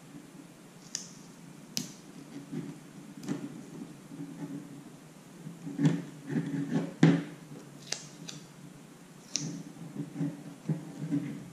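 Hands taping a string end onto a PVC tube: rustling handling noise and tape sounds, with a few short, sharp clicks and snips, some from scissors.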